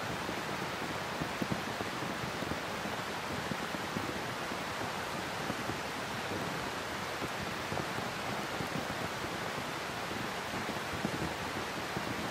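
Steady rain falling on the paddies, an even hiss at a constant level.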